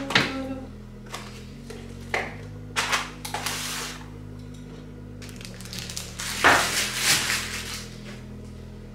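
Knocks and clatter with short hissing, scrubbing noises as the inside of a refrigerator is cleaned, the loudest stretch a little past halfway, over a steady low hum.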